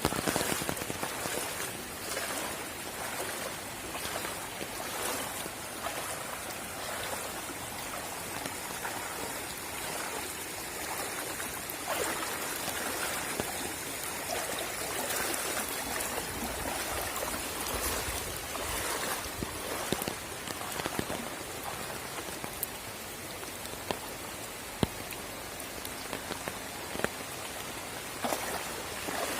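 Steady rain falling, with many separate drops ticking sharply on nearby surfaces.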